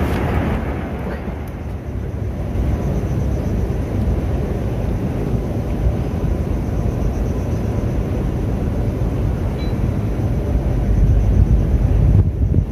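Steady low rumbling noise, growing louder about ten and a half seconds in.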